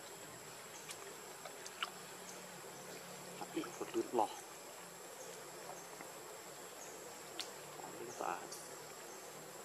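Steady high-pitched insect drone in the forest, with a few short squeaky calls from pig-tailed macaques, the loudest at about 4 seconds in and again near 8 seconds.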